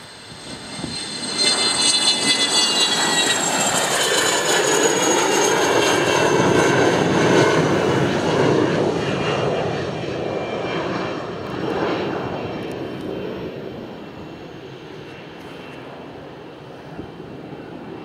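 Twin Pratt & Whitney PW530A turbofans of a Cessna Citation Bravo business jet at takeoff power. The jet noise swells about a second in, with a high whine that falls in pitch as the jet passes, then fades slowly as it climbs away.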